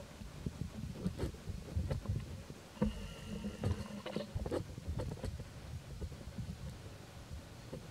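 Dry leaves crackling and rustling in short irregular clicks as a baby macaque moves over leaf litter, over a steady low rumble. A brief humming tone comes in about three seconds in and lasts about a second and a half.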